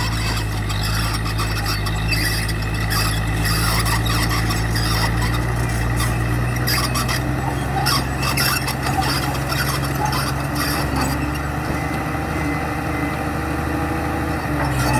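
Bulldozer's diesel engine running steadily, with irregular metallic clicks and scraping over it.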